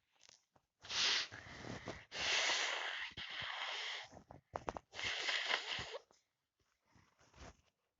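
A person with a heavy cold breathing loudly and noisily in three long breaths: a short one about a second in, a longer one of about two seconds, then one of about a second, with a few clicks in between.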